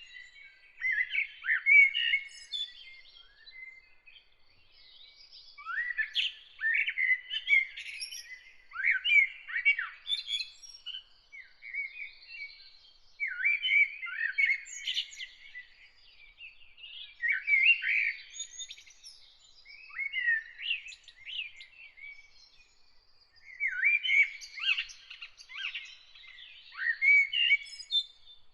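A bird singing in short, quick warbled phrases, each lasting a second or few, with pauses of about a second or two between them.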